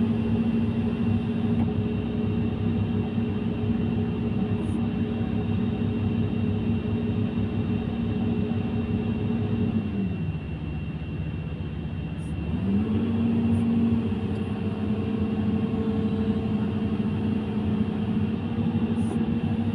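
Excavator diesel engine running steadily at working speed. About halfway through its pitch drops for roughly three seconds, then rises back to speed.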